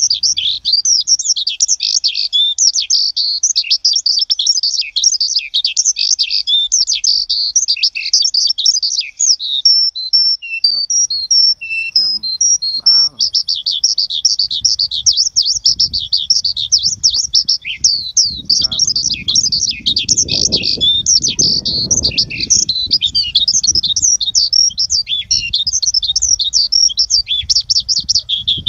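Many small birds chirping constantly in a dense, high-pitched chorus. About halfway through, a low rumble joins in and swells for a few seconds near the two-thirds mark.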